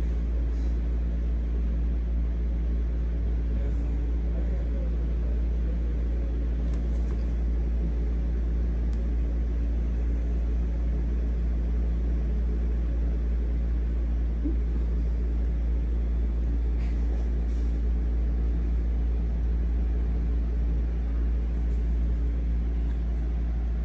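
Steady, unchanging low rumble with a constant hum, from an unseen motor or machine, with a few faint soft clicks.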